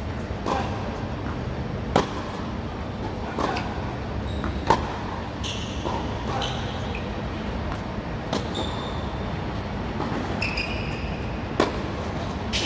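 Tennis rally on a hard court: sharp pops of the ball coming off the racket strings and bouncing, about every second and a half, with a few short high squeaks of shoes on the court.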